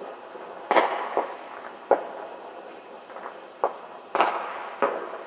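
Scattered bangs of fireworks going off across a neighbourhood. About six loud reports come at irregular intervals, with fainter ones between, and the two biggest trail off for about half a second.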